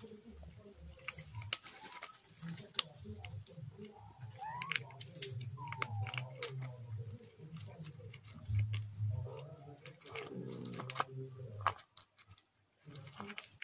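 Quiet outdoor ambience with scattered small clicks and rustles and a low rumble that comes and goes. Two short calls stand out, one rising about four and a half seconds in and one falling about a second later.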